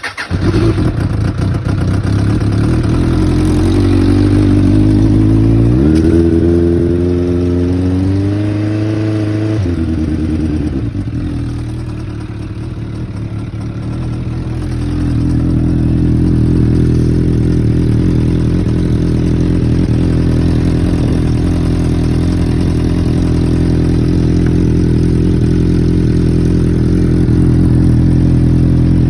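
Suzuki Bandit 600 Mk1's four-cylinder engine starting cold on choke and running. About six seconds in, the revs climb for a few seconds, then drop back suddenly. It settles into a steady idle.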